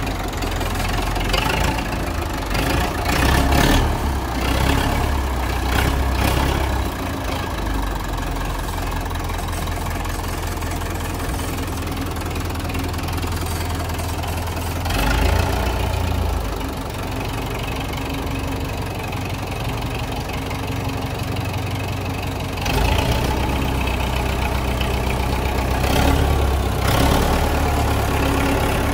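Zetor 6718 tractor's diesel engine running at idle, with a few brief swells in level.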